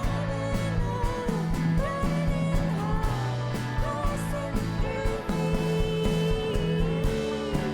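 Live rock band playing a song with drums, bass and electric guitar. A singing voice carries the melody and holds one long note in the second half.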